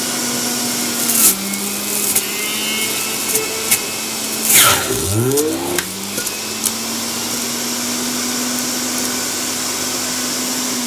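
HOUSNAT centrifugal juicer's motor running with a steady hum while fruit clicks against the spinning cutter. About halfway through, a firm apple pressed down the feed chute loads the motor: it slows sharply with a loud grinding rush, then spins back up to speed.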